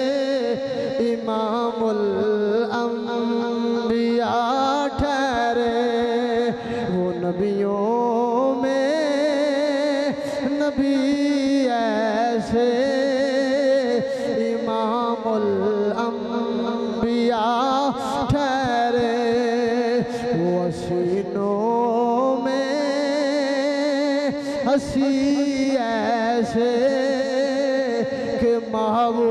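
A man singing devotional verse in long, drawn-out melodic phrases, the held notes wavering and gliding up and down in pitch, with brief breaks for breath between phrases.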